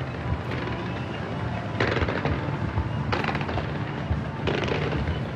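Dense fireworks display: a continuous low rumble of bursts with volleys of rapid crackling, loudest about two, three and four and a half seconds in.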